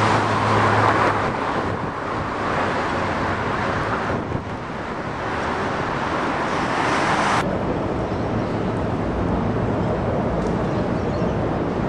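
Steady outdoor city background noise: a wash of traffic-like noise over a low engine hum, with a brighter hiss that cuts off suddenly about seven seconds in.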